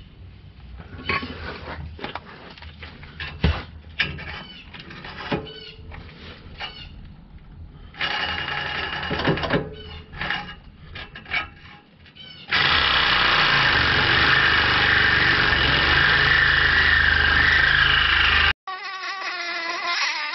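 Knocks and clanks of a cordless reciprocating saw being set against a steel exhaust pipe. About twelve seconds in, the saw runs steadily for some six seconds, cutting into the pipe ahead of the catalytic converter, then stops abruptly.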